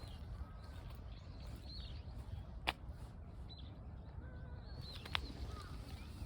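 Small birds chirping now and then over a low steady rumble, with two sharp clicks, one about two and a half seconds in and another about five seconds in.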